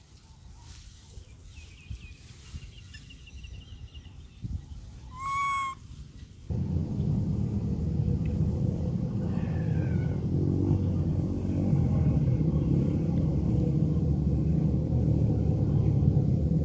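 A young macaque gives one short, high call held on a single pitch, under a second long, about five seconds in. At about six and a half seconds a steady low rumble starts suddenly and runs on.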